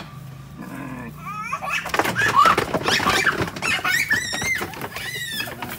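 Goats bleating in high, quavering cries, about four seconds in and again near the end, after a stretch of knocking and clatter in the middle.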